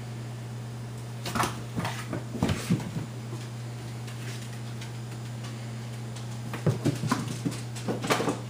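Light taps and knocks in two quick flurries, a little over a second in and again near the end, as a cat bats a dead mouse about on a tile floor. A steady low hum runs underneath.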